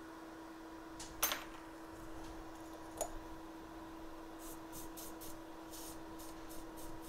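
Steady faint hum at a microsoldering bench, with a scratchy noise about a second in, a click near three seconds, and several short, light scratching strokes in the second half as a hand tool works near the freshly soldered board.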